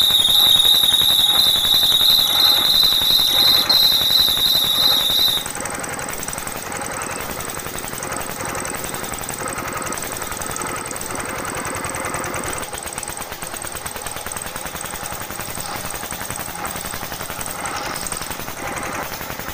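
Miniature belt-driven chilli grinder and its toy model engine running, grinding dried red chillies into powder. A loud, high-pitched squeal for the first five seconds stops suddenly, leaving a steady, fast rattle from the mill with a faint thin whine over it.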